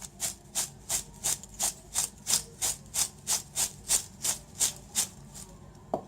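Crisp fried grated potato and peanuts being stirred with spices, a spoon scraping and rustling through the dry snack in even strokes about three times a second, stopping about five and a half seconds in.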